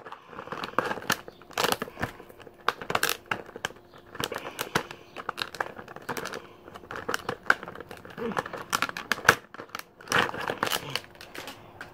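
New screwdriver packaging being handled and opened: irregular crinkling, rustling and tearing with many small clicks.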